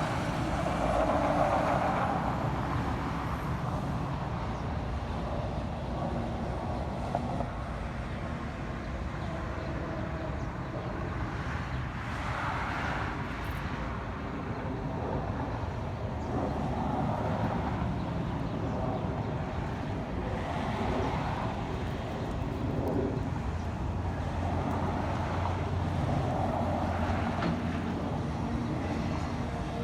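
Excavator's diesel engine running steadily as it works, swelling louder every few seconds.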